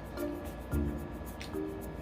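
Background music: a light tune of short repeated notes over a steady ticking beat.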